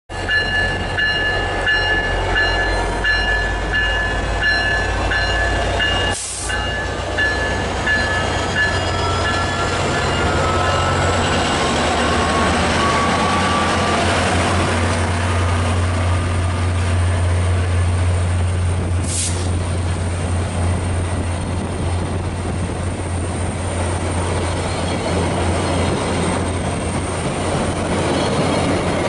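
A train passing with a steady low rumble. High thin squealing tones ring over it for the first ten seconds or so, then fade.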